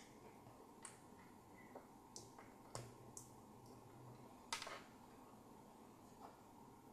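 Near silence: the faint steady hiss of a be quiet! Silent Wings 3 120 mm PWM fan running at low speed (40%), with a few soft clicks scattered through, the loudest about halfway.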